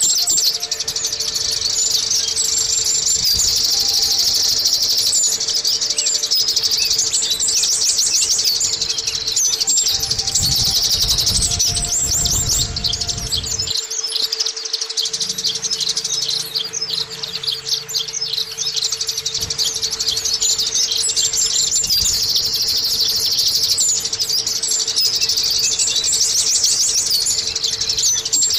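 Zosterops white-eye (pleci) singing a fast, high-pitched, almost unbroken twittering song, with a faint steady hum underneath.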